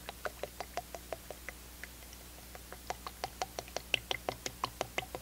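Motor oil glugging from a plastic jug into a funnel as an engine is filled: a quick irregular run of small gurgling pops as air bubbles back into the jug, sparser about halfway through, then quicker and louder from about three seconds in.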